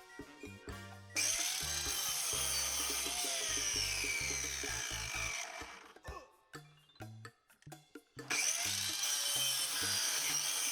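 Electric power tool working wood in two spells of about four seconds each, with a short break between, over background music with a beat.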